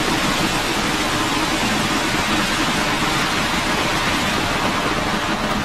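Falcon 9 rocket engines at liftoff, a loud, steady rushing roar heard through the launch webcast's audio.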